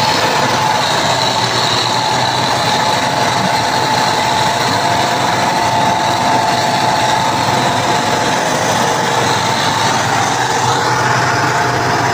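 Tractor engine running steadily at close range, with a constant whine over the engine noise, as the tractor works in deep snow.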